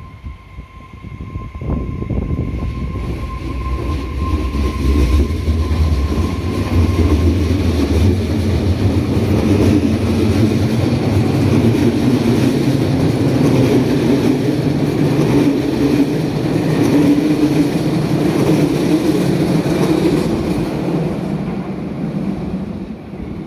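A train passing a level crossing, its rumble building over the first few seconds, holding for most of twenty seconds and fading near the end. A steady high tone, the crossing's warning signal, sounds over the first several seconds before dying away.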